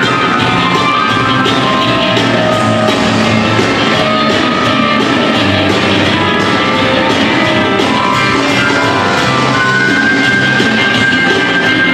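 Live rockabilly band playing an instrumental passage: electric guitar over boogie piano played on a stage keyboard and a drum kit, steady and loud.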